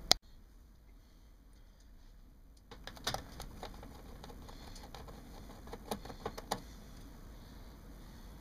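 A screwdriver working a screw out of a monitor's plastic back housing: a run of small metal clicks and scrapes from about three seconds in to about six and a half. A single sharp click comes right at the start.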